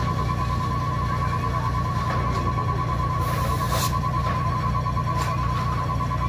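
An electronic alarm beeps rapidly and without a break over a steady low rumble, with faint scattered clicks and a brief hiss just past halfway.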